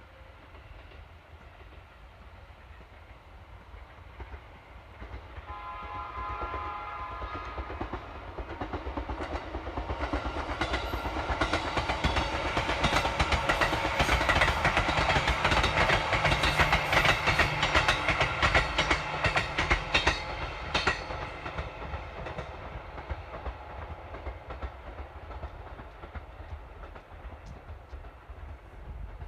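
JR East 205-series electric train passing at a level crossing. It sounds its horn for about two seconds some five seconds in, then its wheels clatter rhythmically over the rail joints, loudest in the middle as it goes by, and fade away.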